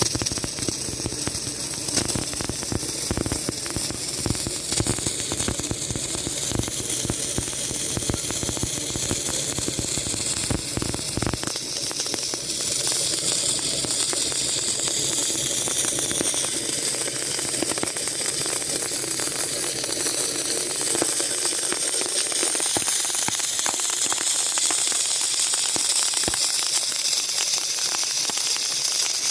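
Submerged arc welding: a steady hiss with dense crackling. The crackle and low rumble drop away about eleven seconds in, leaving mostly hiss.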